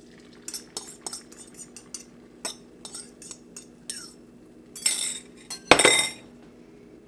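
A fork or whisk clinking against a bowl in a string of irregular taps while beating eggs, followed near the end by two louder scraping, rushing noises.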